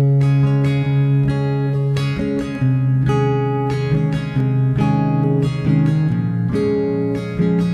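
Background music: acoustic guitar playing chords in a steady rhythm.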